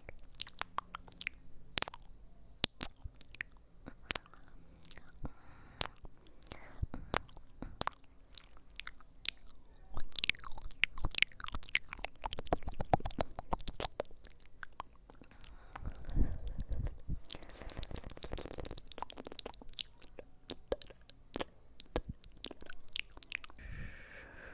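Close-miked ASMR trigger sounds: a dense run of sharp clicks and crunchy crackles, thickest about halfway through, with a brief low rumble a little later.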